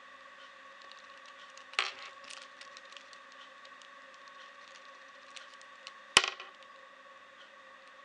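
Small plastic keyring Rubik's cube being turned by hand: a run of light clicks as the layers rotate, with two louder snaps, one about two seconds in and one about six seconds in, over a faint steady hum.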